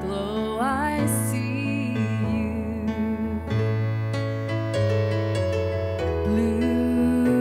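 Slow, gentle music led by piano, with sustained notes over low bass notes.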